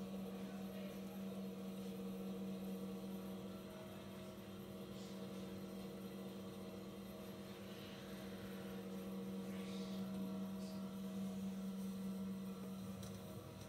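Yan double chairlift's drive motor humming steadily with a strong low tone and higher overtones, heard played back through computer speakers.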